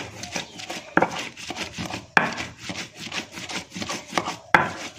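Andaliman pepper and chilies being ground by hand in a mortar and pestle (cobek and ulekan): irregular rubbing and scraping, with a few sharper knocks about one, two and four and a half seconds in.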